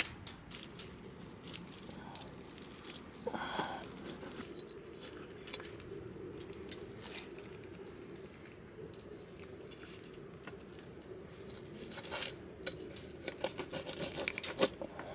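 Scattered rustling, crinkling and light clicks and knocks of things being handled, with one louder rustle about three and a half seconds in and a busier run of clicks and rustles near the end.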